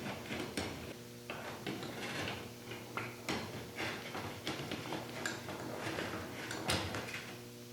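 Small pistons being handled and fitted into a container, giving irregular light clicks and knocks of metal on the container, over a faint steady hum.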